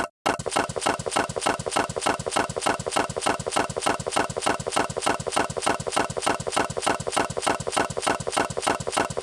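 A rapid, even mechanical rattle like a small motor running, several beats a second, starting abruptly and cutting off sharply near the end.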